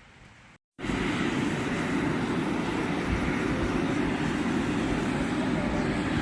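Right after a brief cut near the start, a hydrothermal steam vent with boiling water gives off a steady, unchanging rushing hiss.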